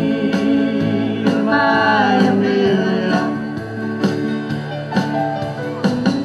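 Live band music from keyboard, electric guitars and an electronic drum kit, playing a steady beat between sung lines of a pop-country song.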